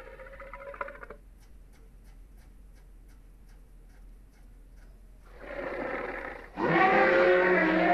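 Sound effects for a fictional Komodo dragon: a growl that ends about a second in, then a run of faint clicks at about four a second, a short breathy hiss, and near the end a loud, drawn-out roar.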